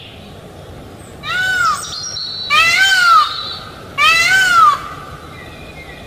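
Peafowl calling: three loud, meow-like calls about a second and a half apart, each rising and then falling in pitch.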